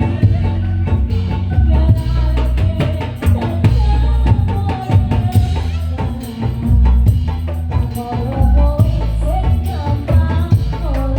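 Indonesian patrol music played by an ensemble: heavy bass and dense, fast percussion strikes under a wavering melody line.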